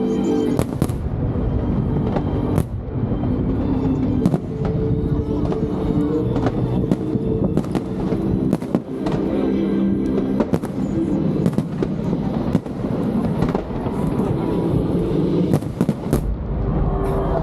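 Aerial fireworks bursting in rapid, irregular succession, with sharp bangs and crackle, over music with held tones.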